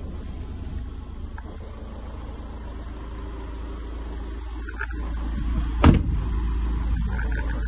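A van's cab door slams shut with one sharp thud about six seconds in, over a steady low rumble.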